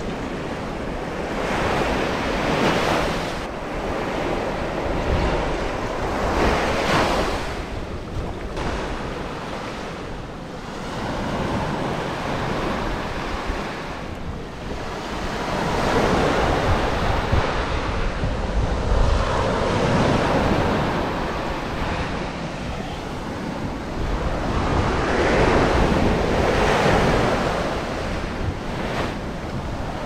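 Small waves washing onto a sandy beach, the surf swelling and fading every few seconds, with wind buffeting the microphone.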